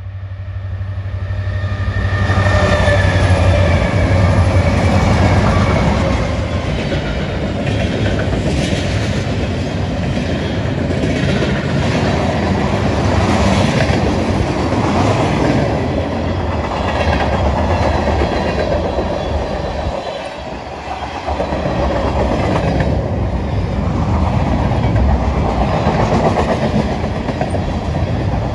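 Diesel-hauled freight train passing close by. For the first few seconds the lead locomotives' engines give a low, steady drone as they go past. The freight cars follow with a continuous rumble and rhythmic clickety-clack of wheels on the rails.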